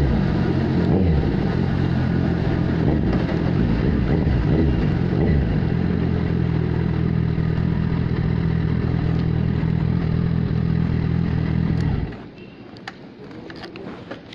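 2015 Kawasaki Z1000's inline-four engine through an SC-Project aftermarket exhaust, its engine speed rising and falling as the bike slows, then idling steadily. The engine cuts off about twelve seconds in, and a few faint clicks follow.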